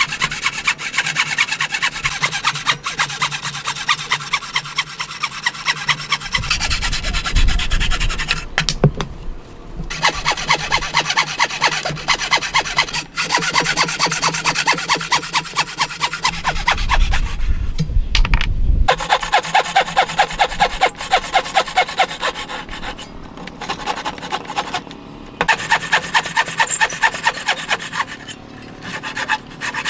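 Metal-framed hand saw cutting through a hardwood block in quick, even back-and-forth strokes, a few a second, with short pauses where the cutting stops and starts again.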